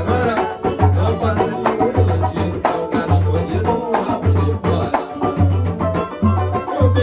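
Live samba played by a small acoustic group: acoustic guitar, banjo and cavaquinho strumming with a pandeiro, over a deep hand-drum beat that falls about once a second.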